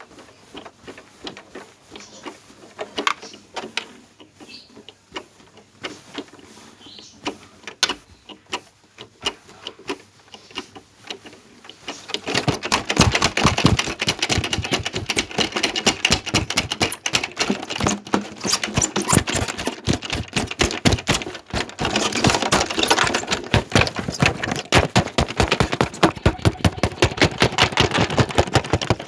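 Washing machine on its spin cycle, shaking hard and knocking and rattling against its surroundings. Scattered knocks at first, then about twelve seconds in it becomes much louder, a fast continuous rattle and banging as the spin picks up speed.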